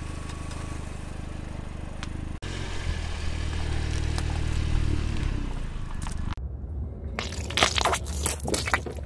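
A slow-rolling car tyre crushing things over the low hum of the car: first a stack of cookies crunching, then a foil-wrapped cheese wedge. Near the end comes a quick run of sharp cracks and pops as plastic paint tubes burst under the tyre.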